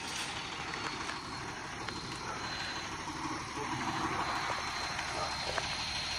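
Automated side-loader garbage truck's engine running steadily, with a thin, steady high whine over it.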